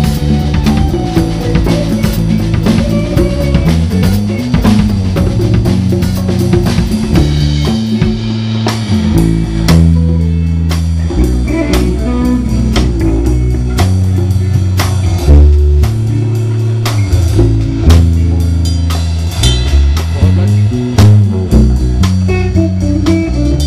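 A live rock band playing, with drum kit, electric guitar and bass guitar.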